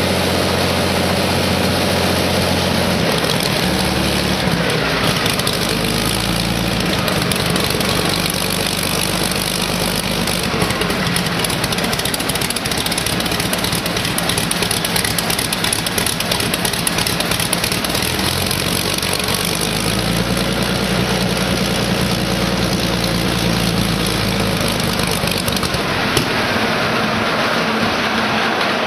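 Rolls-Royce Merlin V12 aero engine running on a test stand through a Beaufighter IIF-type exhaust manifold, which cuts out much of the high frequency and makes it much quieter than a standard Merlin. The engine speed steps up and down several times as the throttle is worked.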